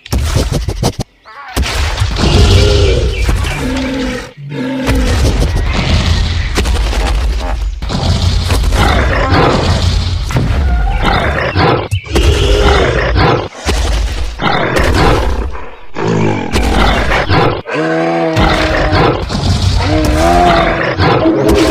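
A string of loud animated-film sound effects cut one after another: animal roars and cries that bend in pitch, heavy rumbles and snatches of music, changing abruptly every second or two.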